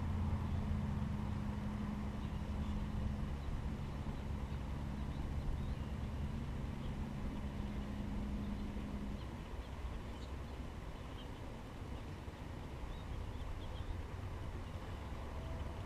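A motor vehicle's engine hums steadily and stops about nine seconds in, over a constant low rumble.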